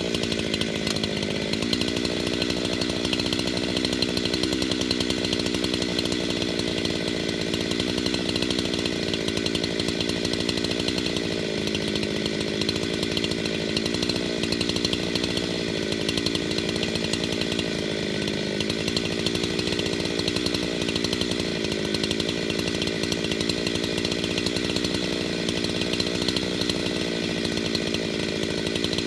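Husqvarna 372XP two-stroke chainsaw running steadily at high revs, its pitch wavering slightly, as it saws through a large log.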